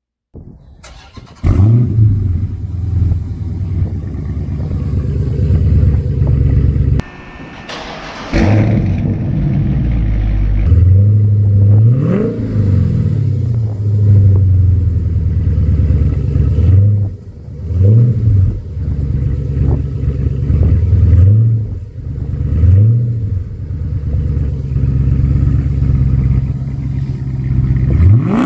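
Dodge Charger Scat Pack's 6.4-litre 392 Hemi V8, exhaust open with the mid-muffler deleted, starting up: it catches suddenly and loudly about a second and a half in. It then idles with a deep rumble and is revved in several quick blips in the second half.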